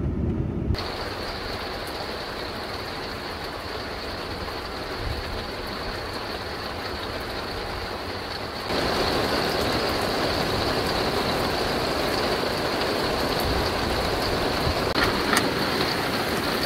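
Steady rushing noise of a truck driving in the rain on a wet highway: tyre spray and rain. The sound changes abruptly about a second in and gets louder about nine seconds in.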